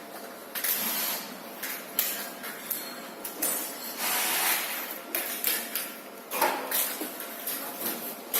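Parts being handled and fitted while a monitor and lens are installed on a laser marking machine: rubbing and sliding noises with a few sharp knocks and clicks, the longest scraping stretch about four seconds in.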